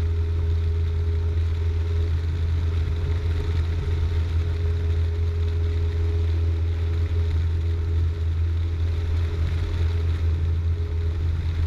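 Cessna 172's piston engine and propeller running steadily at climb power just after takeoff, a constant low drone heard inside the cockpit.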